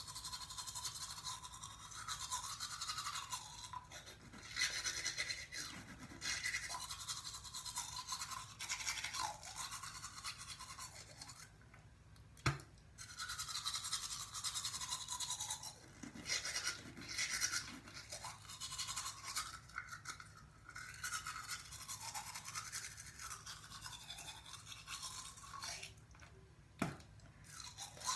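Hard-bristled manual toothbrush scrubbing teeth, a raspy back-and-forth brushing in stretches of a few seconds with short pauses between them. A sharp click about midway and another near the end.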